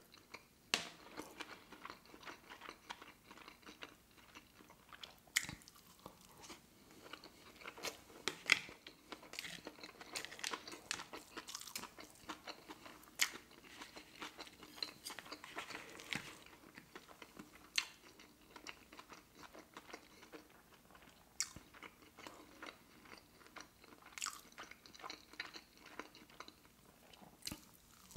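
Close-miked chewing of a sushi roll with crispy tempura flakes: faint, irregular small crunches and mouth clicks, a few sharper crunches now and then.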